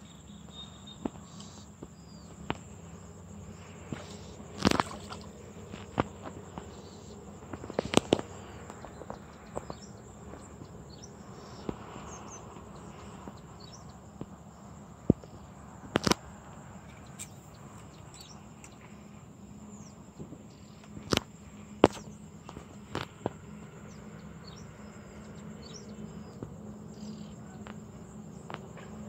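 Steady high-pitched insect chorus, such as crickets, with a dozen or so sharp clicks and knocks scattered through.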